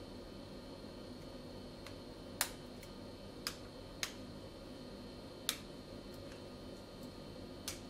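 Five sharp little clicks, spaced unevenly, as the soldering iron tip taps against the metal charging connector on the board. A steady bench hum with a faint high whine runs underneath.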